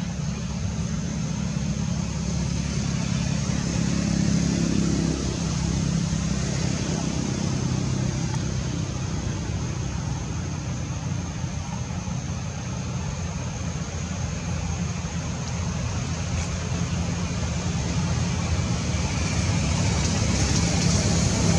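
Steady low engine rumble, like a motor vehicle running nearby, swelling about four seconds in and again near the end, with a thin steady high tone above it.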